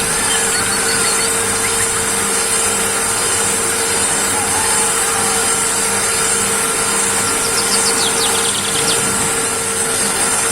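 Homemade sponge-grating machine running steadily: a motor hum with a rough grating noise as it works EVA foam for sandal soles.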